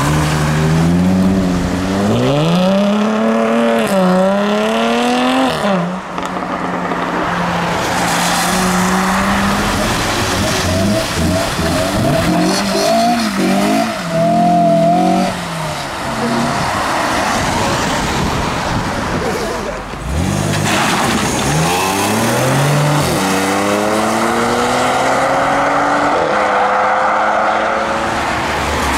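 Sports car engines accelerating hard one after another as the cars pull away, among them a Jaguar F-Type and a Honda S2000. Revs climb in rising sweeps and drop back at each gear change, a second or so in and again around twenty seconds in.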